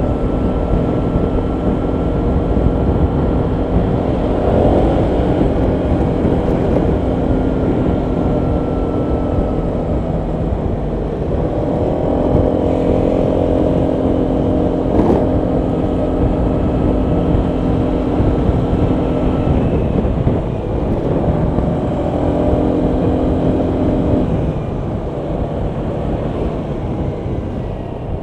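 Honda PCX 125 scooter's single-cylinder four-stroke engine running under way, its pitch sweeping up three times as the throttle opens, over steady wind and road noise. The engine eases off near the end.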